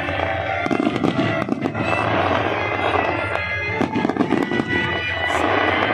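Aerial fireworks bursting in a rapid series of bangs and crackles, over loud music with sustained tones.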